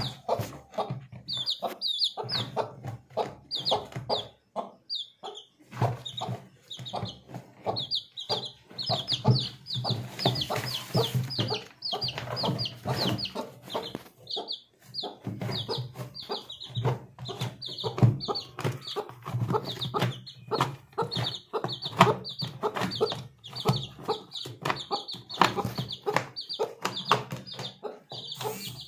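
Young chicks peeping in rapid, repeated short falling high notes, over low clucking from a mother hen.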